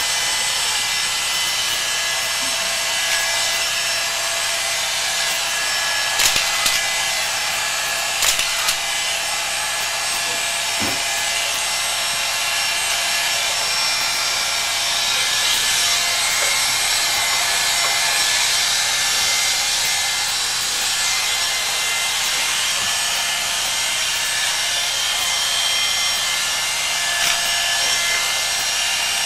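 Electric hair clippers running steadily, cutting through long hair close to the scalp, with two short sharp knocks about six and eight seconds in.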